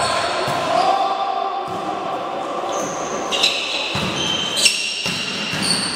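Volleyball rally in a gym: the ball is struck hard twice, about a second apart in the second half, with short high squeaks of sneakers on the court floor and players' voices around them.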